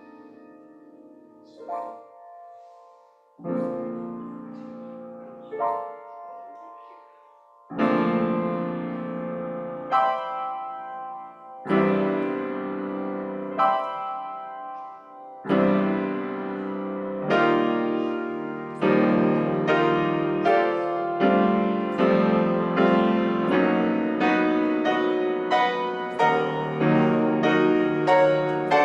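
Solo piano playing slow, sustained chords, quiet and sparse at first, then louder from about a quarter of the way in, with notes coming faster and fuller in the last third.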